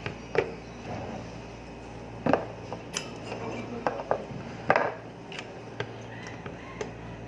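Scattered small clicks and metallic clinks of computer parts and screws being handled during motherboard removal or installation, over a steady low hum.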